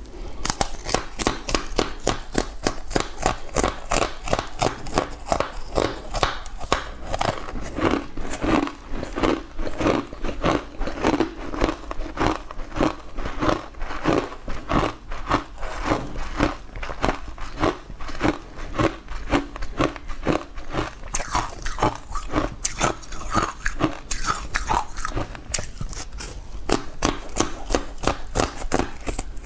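Close-miked biting and chewing of a stiff green stick coated in green powder, with rapid, even crunches about three a second.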